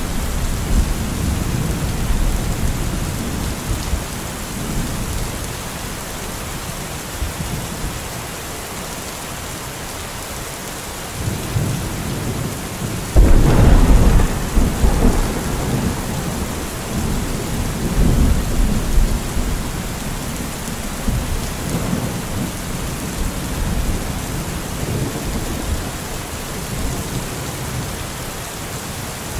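Steady rain with rolling thunder. A loud thunderclap breaks about halfway through and rumbles on for several seconds before fading, with lighter rumbles near the start and a little later.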